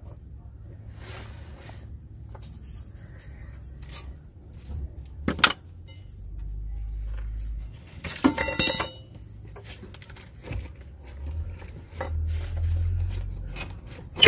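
Metal clinks and knocks of tools and suspension parts being handled while the lower ball joint is lined up to the lower suspension arm, with a ringing metallic clatter about eight seconds in and a sharp knock near the end. A low rumble comes and goes between them.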